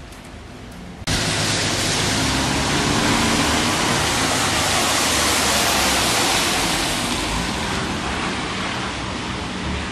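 Heavy thunderstorm rain pouring down, a steady loud hiss that starts abruptly about a second in and eases slightly near the end.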